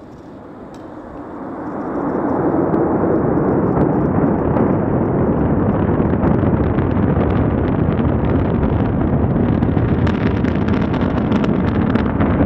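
Falcon 9 rocket's nine first-stage engines roaring at launch, a deep rumbling that swells over the first two seconds and then holds loud and steady with a crackle running through it.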